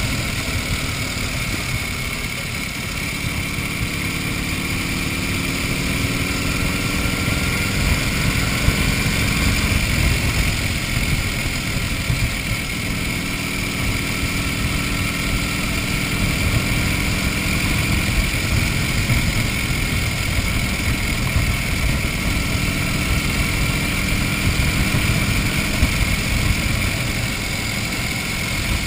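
1931 Indian 101 Scout's flathead V-twin engine running under way. Its pitch climbs steadily over the first ten seconds, dips, then climbs again before holding steady. Wind rumble on the open-air microphone runs underneath.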